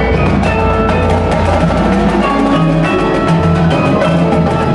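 Winter percussion ensemble playing: marimbas and vibraphones sounding pitched notes over drum hits and low bass notes.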